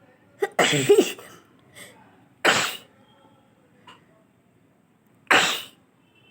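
A person sneezing three times, about two seconds apart, each sneeze a sudden loud burst of breath. The first is voiced and longest.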